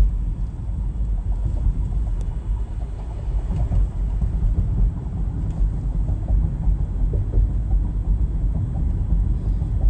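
Steady low rumble of a car driving at speed, heard from inside the cabin: road and engine noise with no distinct events.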